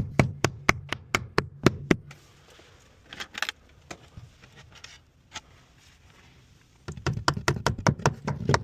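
Hammer driving nails through bent metal window flashing: a fast run of sharp strikes, about three or four a second, then a quieter stretch with a few light knocks, and another fast run of strikes from about seven seconds in.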